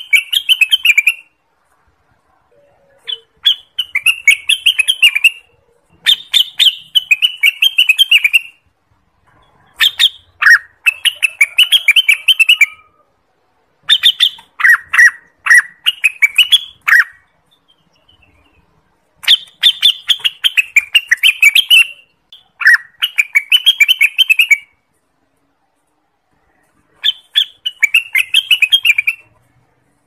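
Orange-spotted bulbul singing: about eight loud phrases of rapid, chattering notes, each two to three seconds long, broken by short pauses.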